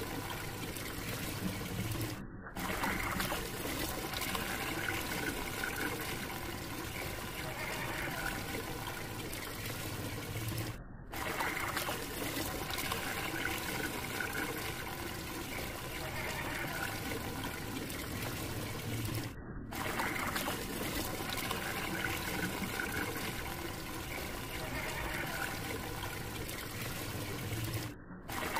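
Water swirling and draining down a whirlpool vortex. The same water sound repeats about every eight and a half seconds, with a brief dulling at each repeat.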